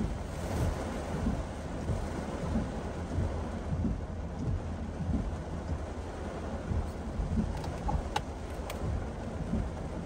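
Heavy typhoon rain pelting a moving car, with a dense, rumbling wash of rain and tyre spray on the wet road. A couple of sharp ticks come near the end.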